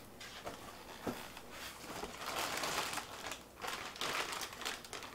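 Plastic packing bag crinkling and rustling as it is handled and pulled out of a cardboard box, with a few small clicks earlier on.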